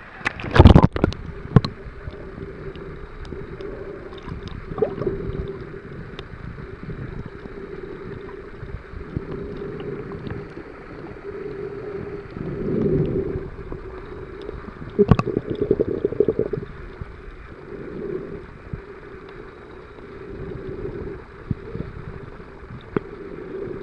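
Muffled underwater sound from a camera in sea water: a steady dull rush with a low hum. There is a sharp splash and knock about a second in as the camera dips under, another sharp knock around fifteen seconds, and swells of water noise every couple of seconds.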